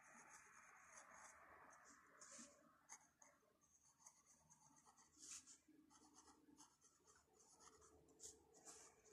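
Faint scratching of a calligraphy pen's nib on notebook paper as cursive letters are written, in short irregular strokes with a few louder scratches about two, five and eight seconds in.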